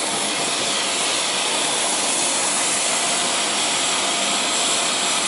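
A jet turbine running with a high, even rushing hiss that does not change.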